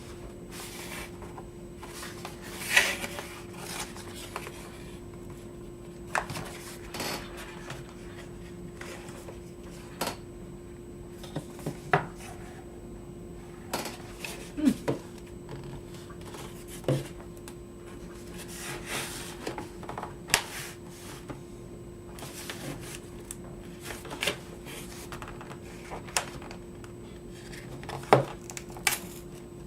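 Cardboard and plastic packaging of a keyboard box being handled and rummaged through: irregular taps, knocks and rustles, a few sharper clacks, over a steady low hum.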